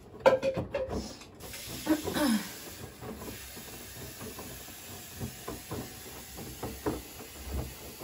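Bosch front-loading washing machine taking in water, a steady hiss of water running through its open detergent drawer to rinse the fabric softener down into the drum.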